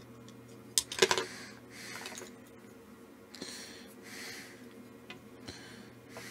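Slow, close breathing heard as several soft hissy breaths. About a second in there is a brief clatter of small hard objects, such as a tool or part knocked on the bench. A faint steady hum runs underneath.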